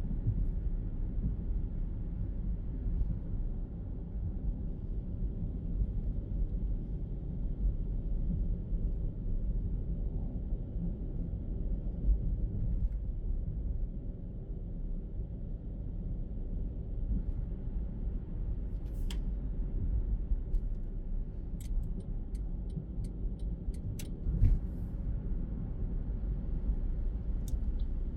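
Car driving in city traffic, heard from inside the cabin: a steady low road and engine rumble. Past the middle comes a run of short sharp ticks lasting a few seconds.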